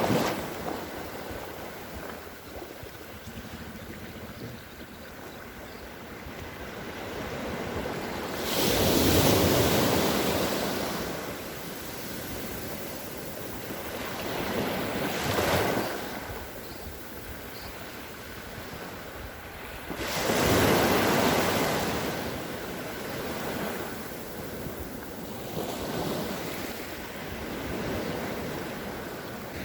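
Ocean surf washing onto a shore, a steady hiss of water with waves breaking and fading every few seconds. The largest breakers come about a third of the way in, near the middle, and about two-thirds in.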